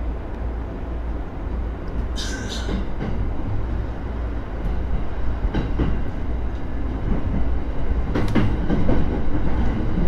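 Commuter electric train running, heard from inside the front car behind the driver's cab: a steady low rumble that grows louder, a short hiss about two seconds in, and clacking of the wheels in the second half.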